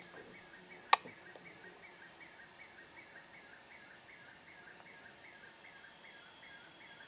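Steady high-pitched insect chorus, with a soft chirp repeating about three times a second. A single sharp click about a second in.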